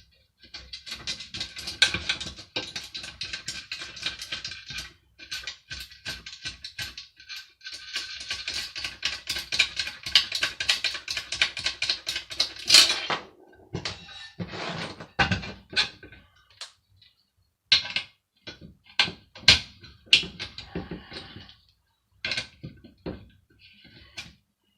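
Screwdriver ratchet clicking rapidly in long runs as screws are backed out, followed by scattered knocks and clatters of loose parts being handled.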